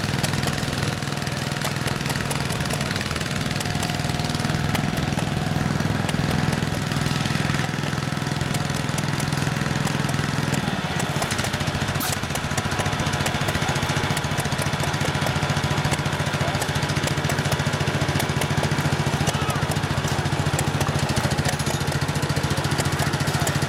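Garden tractor engine running steadily with a fast, even beat; its note changes about ten seconds in.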